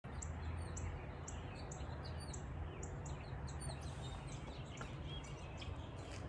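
Birds chirping, short high calls repeating about twice a second, over a low steady rumble.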